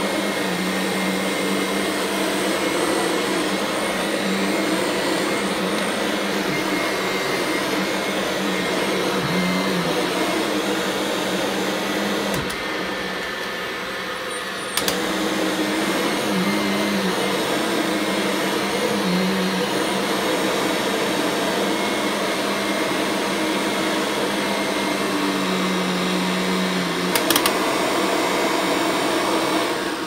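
Kirby Ultimate G Diamond Edition upright vacuum running steadily on carpet, its motor and brush roll giving a loud, even hum. It dips in level for a couple of seconds about twelve seconds in and comes back up with a click. The brush roll is not running right, which the owner suspects is a failing belt.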